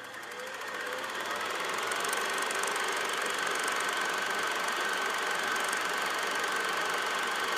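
A motor or machine running steadily, fading in over the first second or two, with a fine rapid rattle and a steady high whine.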